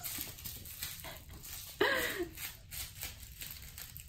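Faint scuffling and light taps of kittens playing on a hard floor, with one short voice sound falling in pitch about two seconds in.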